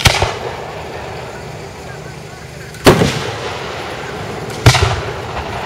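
Aerial fireworks shells bursting overhead: three loud booms, one right at the start, one about three seconds in and one near the end, each trailing off in a rumbling echo, over a steady murmur of crowd voices.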